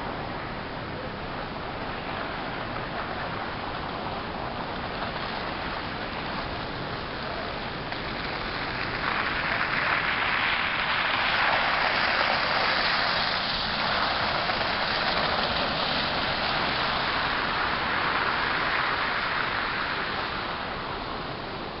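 Toro Power Shovel, a corded electric snow shovel, running with a steady rushing hiss as its rotor churns into snow and throws it, growing louder for about ten seconds in the middle.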